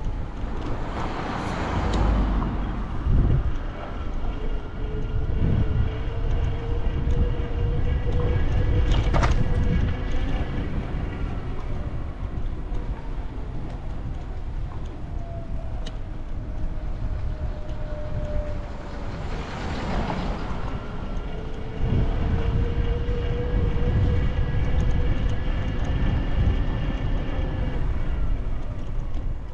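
Street traffic noise: motor vehicle engines running with slowly rising and falling tones over a low rumble, and two louder passing swells, one near the start and one about two-thirds of the way through.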